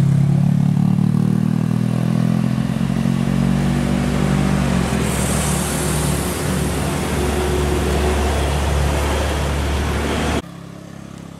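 Vehicles pulling uphill close by: a steady engine drone at first, then the deep rumble of a diesel box truck passing, with a brief hiss about five seconds in. The sound cuts off suddenly near the end.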